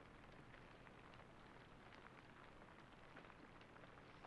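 Near silence: a faint steady hiss of film soundtrack ambience with scattered faint ticks, the score dropped out.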